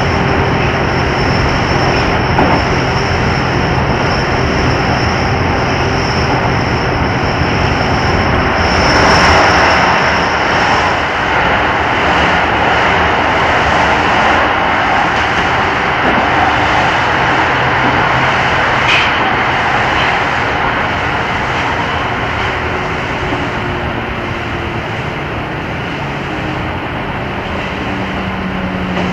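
Amsterdam Metro train running: a steady drone of motors and wheels, with a thin high whine that fades out about eleven seconds in.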